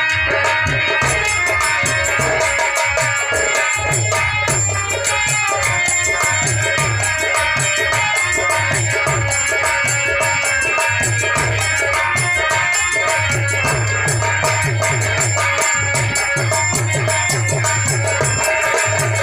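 Instrumental Indian folk music: a harmonium holding and moving between sustained reedy notes over a steady hand-drum rhythm and a continuous jingling rattle.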